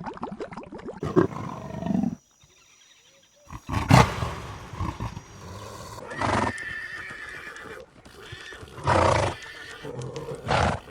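An animal calling: four short, loud calls a couple of seconds apart, after a brief near-silent break about two seconds in.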